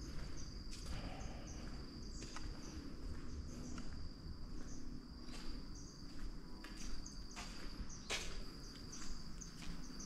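Tropical insects drone on one steady high note, with a short higher chirp repeating about every two-thirds of a second. A few sharp, scattered clicks sound over a faint low rumble.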